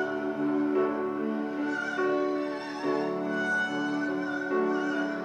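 Female pansori singer holding a string of long sung notes with a wide, wavering vibrato, sliding between pitches, in traditional Korean narrative-song style.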